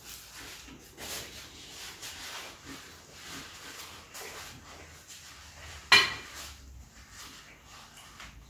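Cutlery scraping and tapping on a plate while eating, with one sharp, ringing clink about six seconds in.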